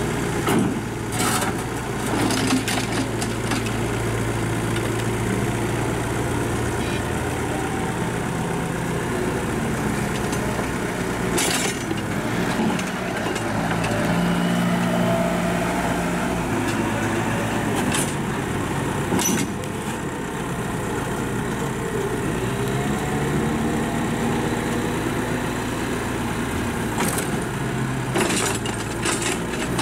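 Yanmar mini excavator's diesel engine running under hydraulic load as it levers itself on its boom and tracks between a flatbed truck's steel deck and the ground, the engine pitch shifting as the hydraulics work. Several sharp metal clanks from the tracks and bucket striking the deck, with a wheel loader's engine also running.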